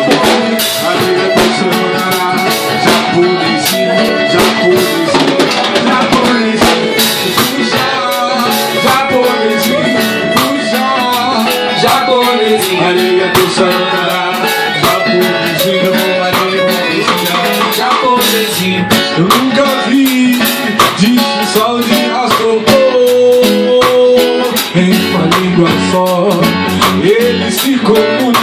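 Band playing an instrumental passage, with plucked strings and a drum beat keeping time.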